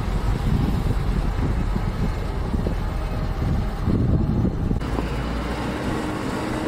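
Diesel engine of a Trường Giang 8-tonne four-wheel-drive dump truck running as the truck moves slowly over a dirt track, a steady low rumble. The higher hiss drops away abruptly about five seconds in.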